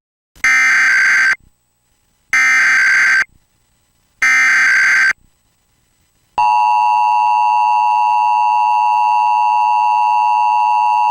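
Emergency Alert System tones: three short bursts of SAME header data, each just under a second long and a second apart, then the two-tone EAS attention signal starting about six seconds in and holding steady. Together they open a Required Monthly Test.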